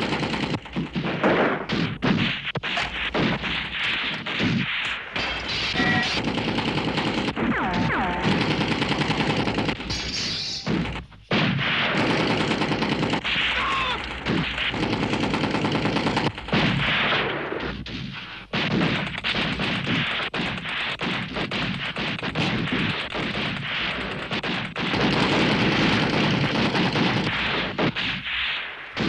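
Heavy gunfire: a machine gun and rifles firing continuously in dense volleys, with a couple of brief lulls.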